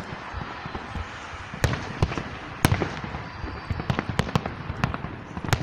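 Fireworks going off: an irregular run of sharp bangs and crackles over a steady hiss, with the loudest cracks about a second and a half in, near the middle and just before the end.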